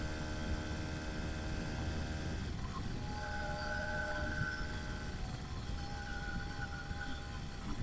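Small engine of a motorized bicycle running under way, with wind rumbling on the microphone. Its steady note changes about two and a half seconds in, leaving a thinner whine that comes and goes.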